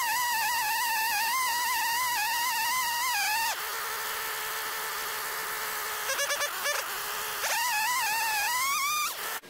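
Gas chainsaw on an Alaskan chainsaw mill running at high revs as it rips lengthwise through a walnut log, a steady whine. Its pitch and loudness drop for about four seconds in the middle, then rise again, and the sound stops abruptly near the end.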